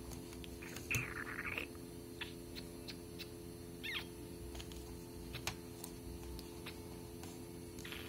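Alexandrine parakeet giving a short harsh call about a second in and a quick falling squeak about four seconds in, among scattered light clicks and taps of beak, claws and pen on the paper notebook. A steady electrical hum runs underneath.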